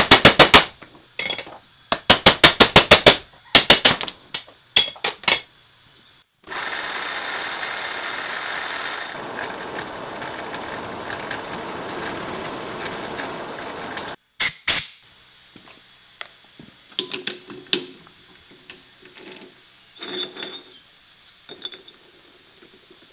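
Work on freeing a press-fit aluminium flywheel from its shaft: two short runs of rapid, even hammering impacts, then a steady hiss for about eight seconds, a sharp double knock, and a few light knocks.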